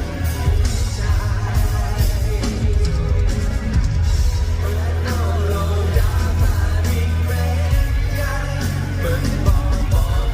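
Loud live rock music with a singer over heavy bass and drums, a band at a sound check.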